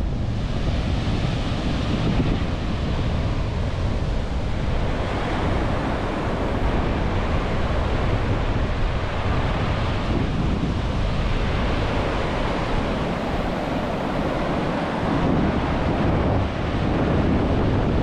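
Wind buffeting the microphone: a steady, loud rushing rumble, heaviest in the low end.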